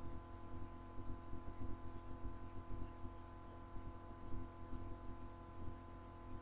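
Faint steady electrical hum from the recording setup, made of several constant tones, with irregular soft low thumps under it.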